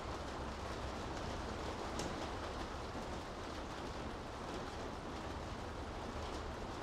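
Steady rain falling on city streets, an even hiss over a low, constant rumble, with one short sharp tick about two seconds in.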